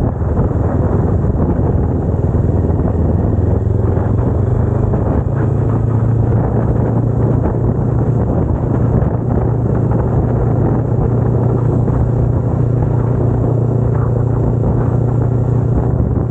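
Kawasaki Ninja 250R's parallel-twin engine running under way. Its note climbs a little over the first few seconds as the bike picks up speed, then holds steady at cruise.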